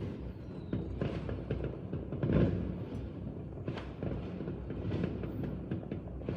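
Fireworks going off, a string of irregular bangs and crackles over a steady low rumble.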